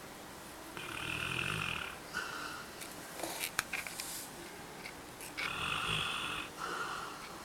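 Labrador retriever snoring in its sleep: two long, rasping snore breaths several seconds apart, each trailed by a shorter one, with a few short clicks in between.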